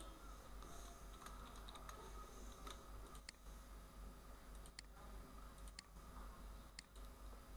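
Faint, scattered clicks of a computer keyboard and mouse, irregularly spaced, over a low steady hum.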